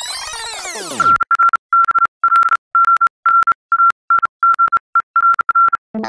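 An electronic swoop falling away in the first second, then about a dozen short and long beeps at one steady pitch in an uneven, Morse-code-like rhythm. Electric piano notes come in right at the end.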